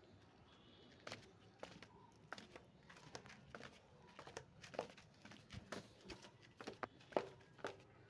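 Footsteps on concrete stairs: faint, irregular taps and knocks about two a second, the loudest about seven seconds in.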